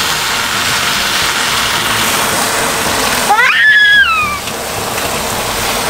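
Water from a garden hose running steadily into a foam-filled plastic tub, a loud even hiss. About three and a half seconds in, a young child gives a high squeal lasting about a second.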